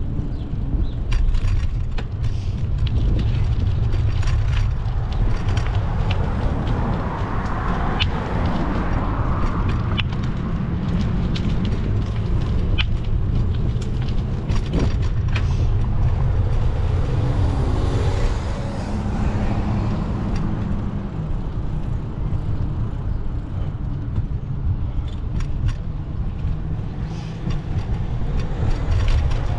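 City street traffic heard from a moving bicycle: cars passing, with one swelling past about eight seconds in and another around eighteen seconds, over a steady low rumble and scattered small clicks.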